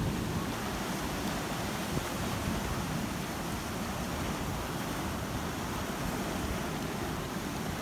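Sea surf washing in over rocky reef, a steady rush of breaking waves and foaming water.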